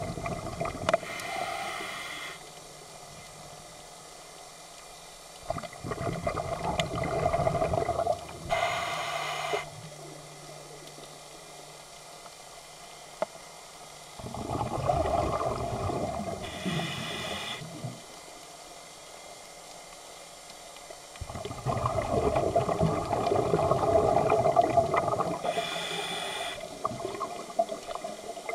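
Scuba diver breathing through a regulator, heard underwater: four bursts of exhaled bubbles gurgling, each ending in a short hiss, with quieter stretches of several seconds between breaths.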